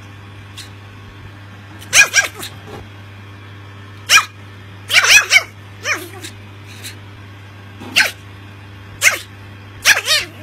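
Small Chihuahua barking in short, high-pitched yaps, some single and some in quick pairs, every second or two.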